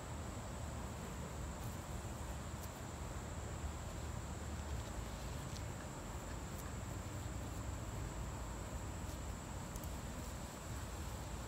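Steady high-pitched insect trill over a low rumble, with a few faint clicks.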